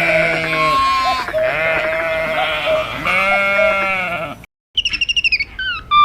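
Sheep bleating: three long, quavering calls one after another. After a short break, a quick run of short high-pitched peeps falls in steps near the end.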